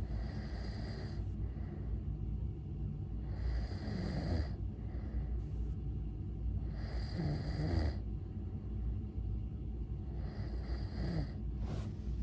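Snoring in deep sleep: four breaths about three and a half seconds apart, each ending in a short falling tone, over a steady low hum.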